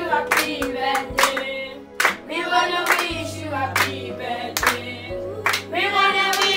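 A group of children singing together, with hand claps along with the song.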